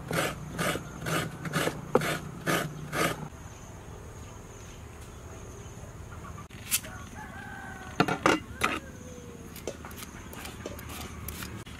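Coconut being grated by hand on a serrated metal coconut-scraper blade, about two rasping strokes a second for the first three seconds, then a few scattered scrapes. A rooster crows faintly in the background partway through.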